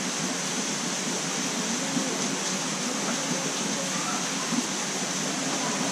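Steady outdoor hiss with faint, distant voices murmuring now and then.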